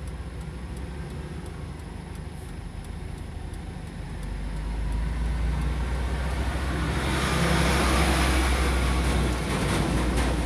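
A truck engine idling with a steady low rumble. From about five seconds in, a passing semi-truck with a flatbed trailer swells into a loud rush of engine and tyre noise, loudest about eight seconds in, then eases a little near the end.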